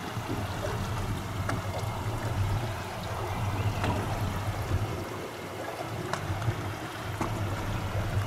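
Boat motor running steadily with a low hum, with water rushing and splashing along the hull and a few faint ticks.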